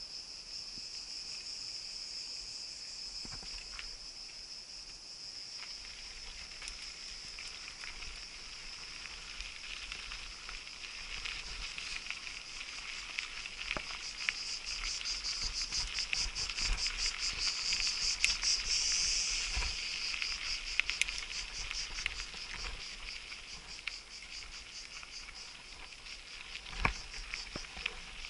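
A dense chorus of insects shrilling steadily, swelling into a fast pulsing stretch in the middle. Under it are the low rumble and scattered clicks of a mountain bike rolling over a gravel dirt track, with one sharper knock near the end.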